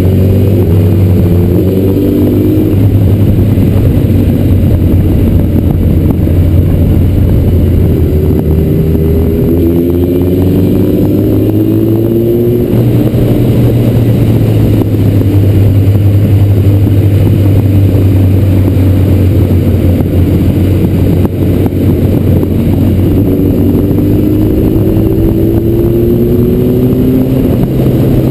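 Inline-four sport motorcycle ridden at speed, heard from a helmet-mounted camera, with heavy wind rumble over the mic. The engine note rises through the revs three times: at the start, about a third of the way in, and near the end.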